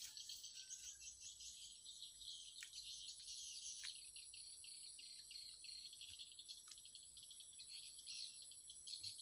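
Faint, steady chorus of insects chirring, a high, finely pulsing buzz, with a couple of faint ticks.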